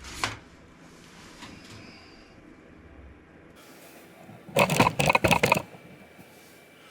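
A single sharp click at the start, then a quick flurry of hard clicks and clatters about four and a half seconds in, lasting around a second: hard objects being handled on a workbench.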